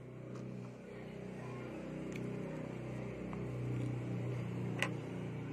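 A steady low mechanical hum that grows louder over the first few seconds, under a few light clicks of small plastic LEGO pieces being picked up off a wooden tabletop; the sharpest click comes about five seconds in.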